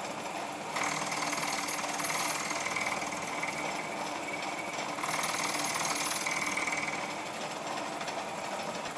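Milling machine running with an end mill cutting into a brass part held in the vise. The noise is steady, with a high whine from the cut that grows louder about a second in and again around five to seven seconds in.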